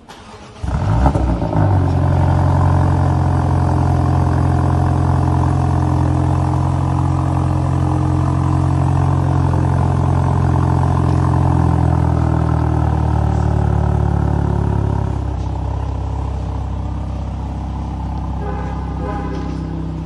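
BMW M235i's turbocharged 2.0-litre four-cylinder starts about a second in with a brief flare of revs. It then settles into a steady idle through the exhaust, which eases down a little in the last few seconds.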